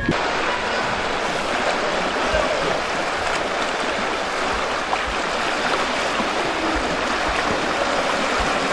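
Steady rush of fast, turbulent river water running through a whitewater slalom course.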